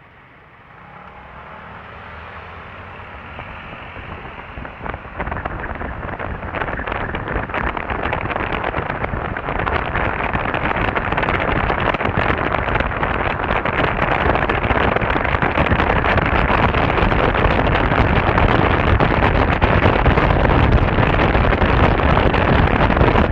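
Wind rushing and buffeting over the microphone of a camera on a moving scooter, together with the scooter's road noise. It starts quiet and grows steadily louder over the first several seconds as the scooter pulls away from a stop and gains speed, then stays loud and rough.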